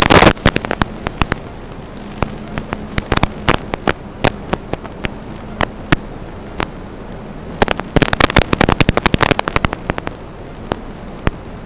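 Irregular crackling static: sharp clicks and pops over a steady hiss and faint hum, coming in dense clusters in the first second and again about eight seconds in. It is typical of interference on an analog FPV video link's audio channel.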